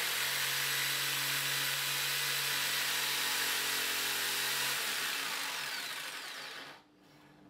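TACKlife TJS02A barrel-grip jigsaw running and cutting through a pine board, a steady blade-and-motor noise that fades and stops about a second before the end.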